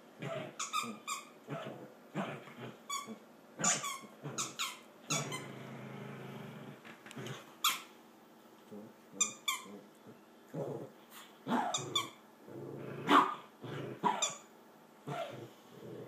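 A dog growling, with a longer growl about five seconds in, among many short, high squeaks.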